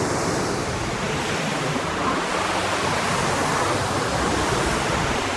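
River water rushing steadily over rocks, a continuous hiss of fast-flowing water.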